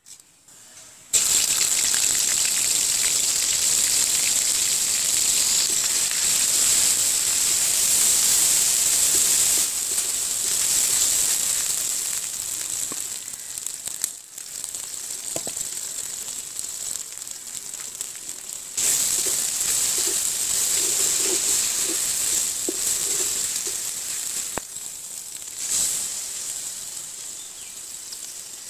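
Cumin seeds, then mustard paste, sizzling in hot cooking oil in a large karahi: a loud, steady frying hiss that starts suddenly about a second in as the seeds hit the oil. It eases in the middle, comes back loud about two thirds of the way through and fades a little near the end.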